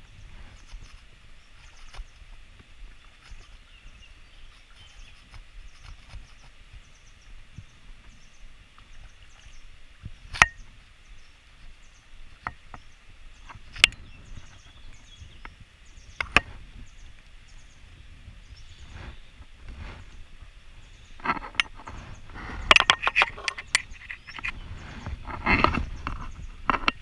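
Angler's fly-fishing gear and clothing being handled close to the microphone: a few sharp, isolated clicks, then a dense spell of clicking and rustling near the end. Faint, regular high chirping runs underneath.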